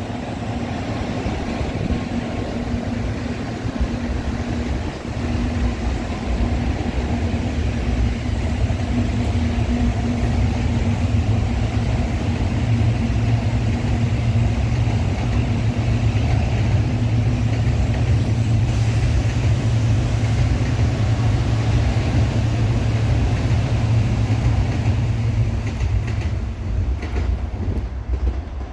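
N700-series Shinkansen train pulling out of the station, a steady rumble with a low hum. It grows louder over the first several seconds, holds, then fades near the end as the train leaves.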